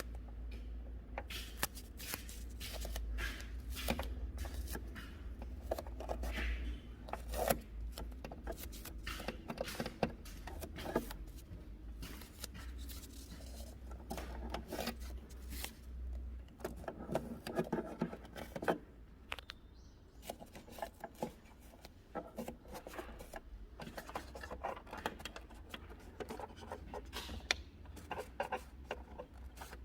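Hand-work handling noises: scattered clicks, taps, scraping and rubbing of parts and material being handled, over a steady low hum.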